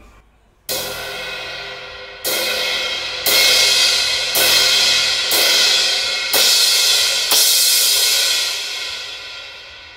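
Domene Dante Thin crash cymbal struck seven times with a drumstick, roughly once a second, the first hits lighter and the later ones louder, then left to ring and fade away. Being thin, it opens to its full wash of overtones quickly with little force.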